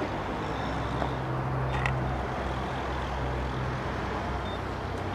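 Steady low hum of idling and passing vehicle engines around a roadside fuel station, with a short high beep about two seconds in.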